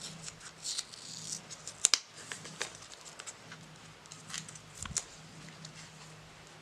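Plastic packaging being peeled off and crinkled by hand, with scattered light clicks and rustles.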